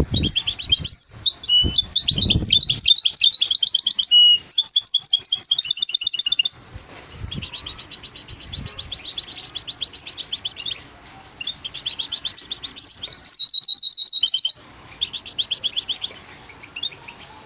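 Goldfinch × canary hybrid (bandouk) singing in its cage: a long, fast song of trills and rapid repeated notes with short breaks. The song is louder in the first six seconds and again for a burst near the end, with a few low thumps near the start.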